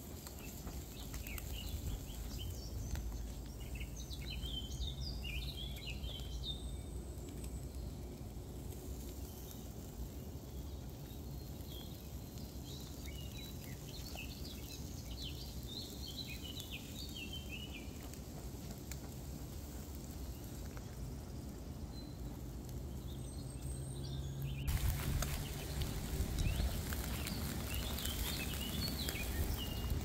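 Birds chirping in a few scattered bursts over a steady low outdoor rumble. About five seconds before the end, a louder rustling, scraping noise comes in, like footsteps and handling on gravel.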